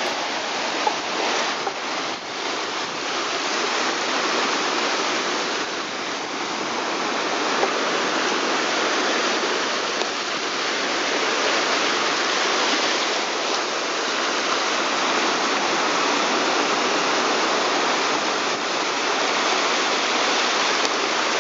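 Steady rushing water, an even noise with no pitch or rhythm that runs on without a break.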